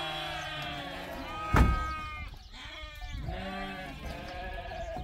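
Sheep bleating: two long, wavering bleats, the second starting about two and a half seconds in. A sharp, loud thump comes about one and a half seconds in, during the first bleat.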